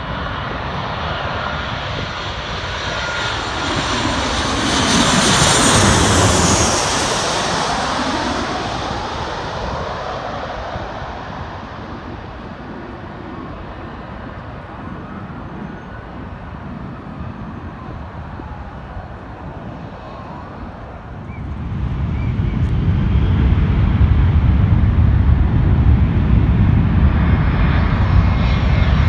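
Boeing 737-800 airliner, with CFM56 turbofans, passing low overhead on final approach: the engine whine swells and drops in pitch as it goes over, about five to seven seconds in, then fades. About three-quarters of the way through, a deep low rumble builds as a JetBlue Airbus A321 approaches.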